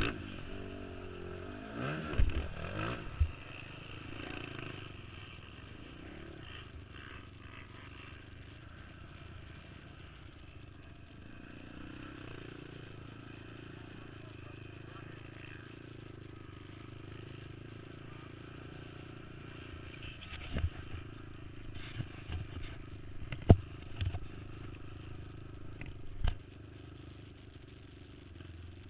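Racing quad ATV engines, revving up and down in the first few seconds and then a steady distant drone of quads running around the track. Several sharp knocks come through, the loudest about two-thirds of the way in.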